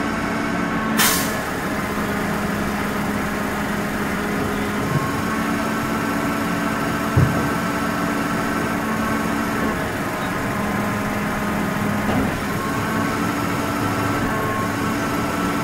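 Rear-loader garbage compactor truck's diesel engine running steadily, with a few knocks as bins and bags are emptied into the hopper: a sharp clank about a second in and a low thud about seven seconds in.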